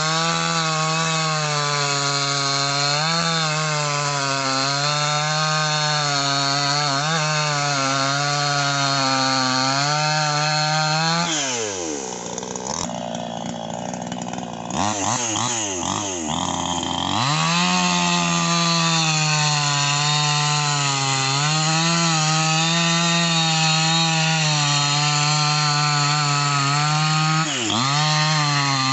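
Two-stroke chainsaw cutting through sonokeling (rosewood) logs at full throttle, its engine note wavering as the chain bites. About eleven seconds in the cut ends and the engine drops off for a few seconds, then revs back up into a second cut that runs on steadily.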